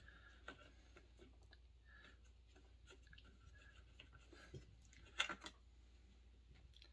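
Near silence with a few faint clicks and taps and a short clatter of sharper clicks about five seconds in: small chainsaw parts and tools being handled during teardown.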